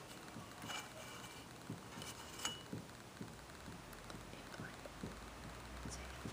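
Faint, irregular clicks and scrapes of a light bulb's threaded metal base turning out of a brass lamp socket.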